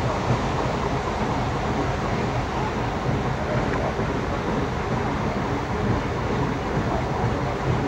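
Narrow-gauge passenger train under way, heard from aboard: a steady rumbling running noise from the train with its TU2 diesel locomotive.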